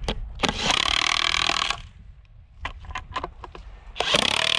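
Power screwdriver driving screws into wooden sill plates: two runs of about a second and a half each, with taps and clicks between them.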